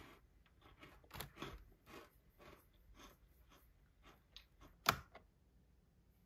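Crunchy chocolate chip cookie being broken and eaten: faint crisp crunches about twice a second, with one sharper, louder crack about five seconds in.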